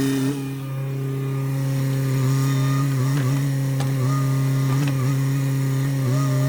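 Sany SY50U mini excavator's diesel engine running steadily at working speed, its pitch dipping briefly a few times, with a few faint clicks.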